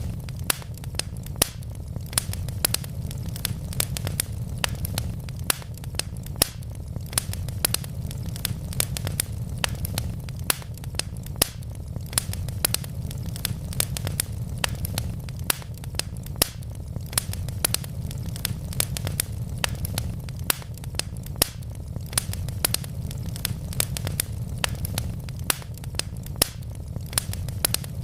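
Wood fire burning in a fireplace: a steady low rumble of flames with frequent irregular sharp crackles and pops from the burning logs.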